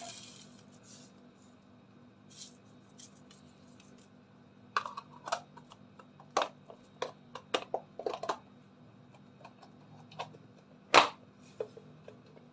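A run of light, irregular clicks and taps as salt is shaken over raw chicken pieces in a plastic container, followed by one louder knock about eleven seconds in.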